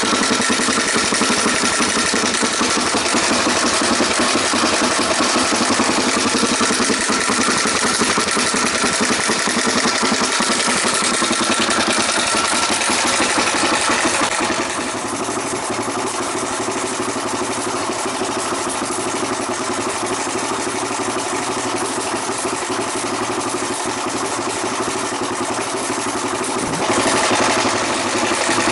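Suzuki DR-Z400SM single-cylinder four-stroke engine idling steadily through an aftermarket silencer. About halfway through the sound turns duller and slightly quieter, then brightens again near the end.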